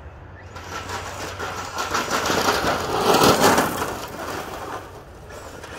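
Losi TEN-SCTE RC short-course truck, driven by a brushless Leopard 2000 KV motor, running on a gravel driveway, its tyres crunching and spraying gravel. The sound builds to its loudest about three seconds in, then fades as the truck drives away.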